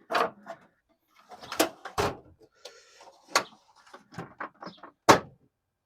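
Tool chest drawers sliding and metal tools knocking and clanking together, in a series of sharp clanks with a short sliding rasp about three seconds in.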